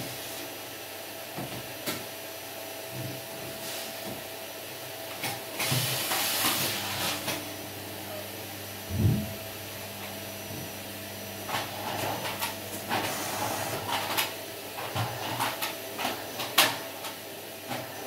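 Canister vacuum cleaner running with a steady hum, broken by scattered knocks and clicks and a loud thump about nine seconds in.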